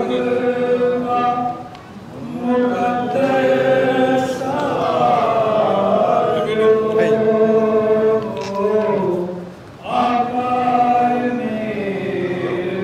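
Devotional chanting by a group of voices in unison, unaccompanied, on long held notes. The voices drop away briefly twice, about two seconds in and near ten seconds.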